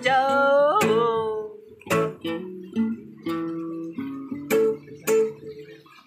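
Two acoustic guitars strumming chords, with a man's voice singing one long, wavering note for about the first second and a half. After that the guitars play alone, with a few sharp strums.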